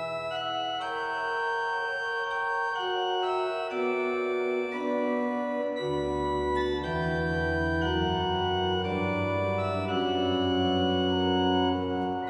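Church pipe organ playing slow, held chords; deep bass notes come in about halfway through.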